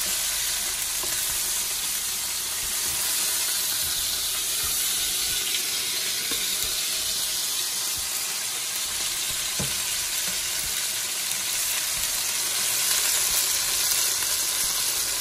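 Chicken pieces frying in a pan, with a steady sizzle throughout and a few light knocks.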